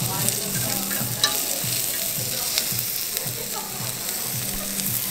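Slices of beef and a thick steak sizzling on a hot domed Korean barbecue grill plate greased with beef tallow: a steady frying hiss full of small crackles, starting abruptly.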